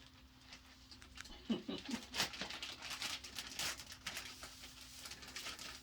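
Plastic bag of dry seasoned breading mix being shaken and worked by hand to blend it, a rapid irregular rustling and crinkling.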